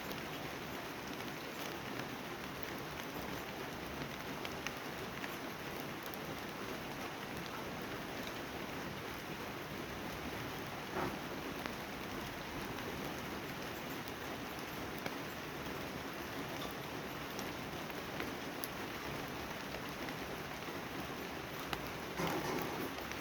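Steady rain falling, an even hiss with scattered louder drops ticking on surfaces, and a brief louder patch near the end.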